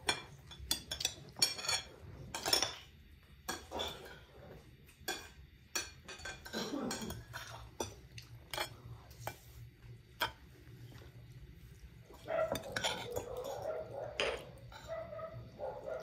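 Metal spoons and forks clinking and scraping against ceramic plates as people eat, in scattered, irregular clicks.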